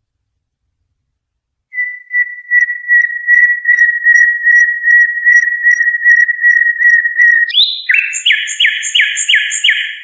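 Recorded 'Haddad' tutor song used to teach young cage birds their song. A whistled, pulsing trill on one pitch begins about two seconds in and holds for several seconds, then a rising note and a run of five quick downward-sweeping notes follow near the end.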